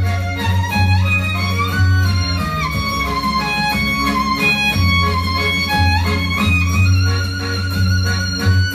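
Violin playing a melody over a piano accordion's accompaniment, with the accordion's low bass notes held underneath and coming and going.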